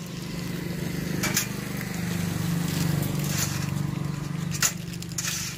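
A small engine running steadily with a fast, even pulse, growing a little louder about two seconds in. Two sharp clicks stand out, about a second in and near the end.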